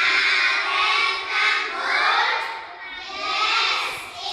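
A class of young children chanting a lesson aloud together in unison, their voices rising and falling in short phrases.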